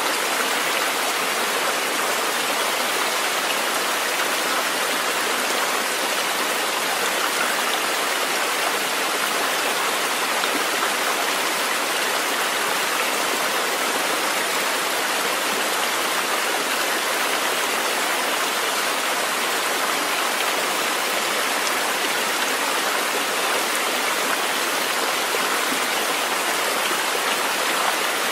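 Nature-sounds track of a flowing stream: an even, steady rush of water.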